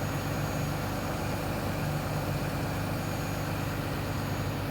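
Truck engine idling steadily with a low, even drone.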